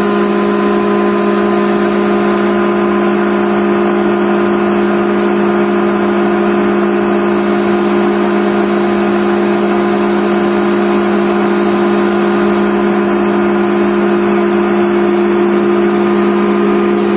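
Atlas Copco GA11 rotary screw air compressor, driven by an 11 kW electric motor, running loaded with its sound-enclosure panels off, building up tank pressure. The sound is a loud, steady drone with a strong, even low hum.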